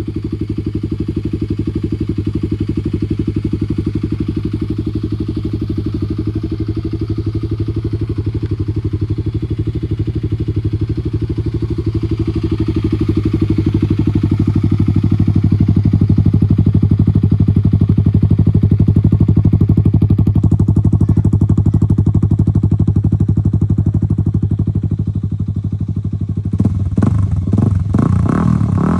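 Kawasaki KLX300 single-cylinder four-stroke engine running through a Delkevic aftermarket exhaust, idling steadily with an even pulse. Near the end it is revved in a few quick throttle blips.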